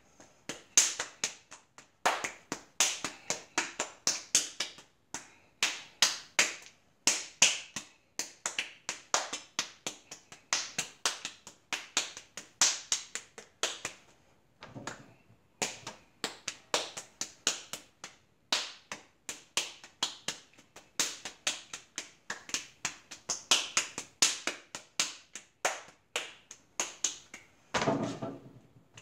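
Hands slapping and patting a lump of raw clay during wedging: quick, sharp slaps, several a second, with a short break about halfway and a heavier, duller press of the clay onto the plaster board near the end.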